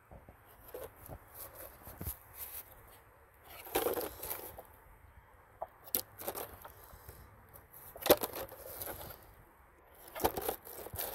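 Thin clear plastic jugs being handled and fitted together, the cut top half pushed down over the soil-filled bottom: plastic crinkling and scraping in four bursts a couple of seconds apart.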